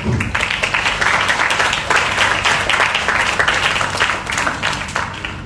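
Audience applauding, a dense patter of many hands clapping that starts at once and tapers off near the end.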